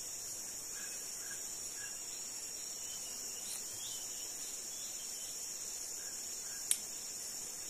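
Steady, high-pitched insect chorus, with a few faint short chirps over it. One sharp click about two-thirds of the way through.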